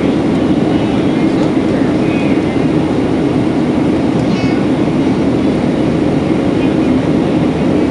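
Boeing 737-700's CFM56-7B turbofan engines and rushing airflow heard inside the cabin during the climb after takeoff: a steady, even noise.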